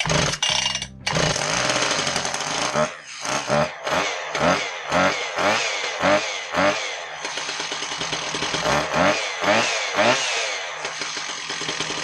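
Husqvarna K760 power cutter's two-stroke engine being pull-started. It catches about a second in and runs, with the throttle blipped up and down a dozen or so times, showing it starts and runs again after the no-start repair.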